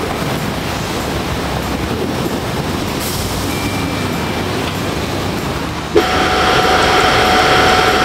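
4x4 SUV fording a shallow river, its wheels pushing through the water in a steady, even rush of splashing. About six seconds in, this cuts off abruptly into a louder, steady droning sound with held tones.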